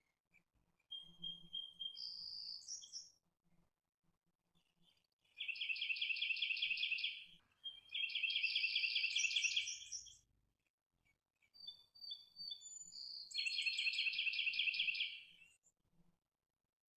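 Songbird singing: three phrases of rapid, evenly repeated notes, each about two seconds long, with shorter high whistled notes leading into them.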